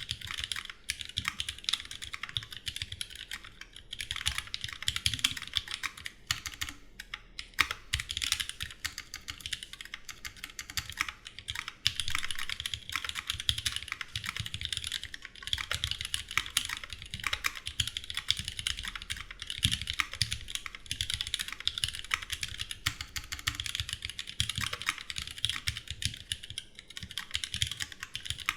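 Continuous fast typing on a mechanical keyboard, a Duck Jetfire with GMK keycaps and rebuilt, lubed vintage Cherry MX Black linear switches: a dense, uneven run of keystrokes with only brief pauses.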